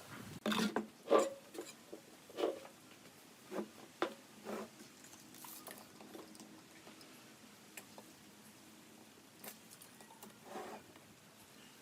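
Scattered light knocks and taps of wooden pieces being handled and set down, frequent at first and thinning out after about five seconds.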